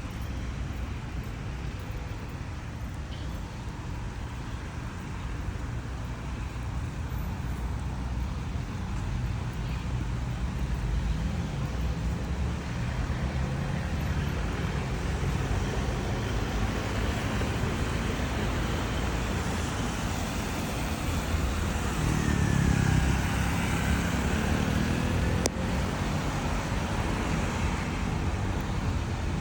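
Steady low rumble of road traffic, swelling a little as it goes, with one vehicle's engine tone dipping and rising about two-thirds of the way through.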